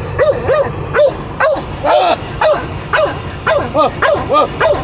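Dogs barking in a quick run of short barks, each rising and falling in pitch, about two to three a second, coming faster and overlapping near the end.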